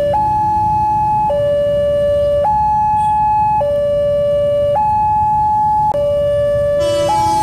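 Electronic railway level-crossing warning alarm sounding a steady two-tone call, switching between a high and a low tone about once a second. Near the end, the rising noise of an approaching electric commuter train joins it.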